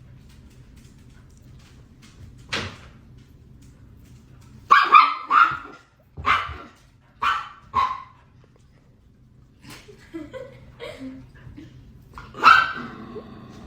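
A dog barking in short single barks, about seven of them, most bunched in the middle with a gap of several seconds before a last loud bark near the end, which trails into a drawn-out pitched sound.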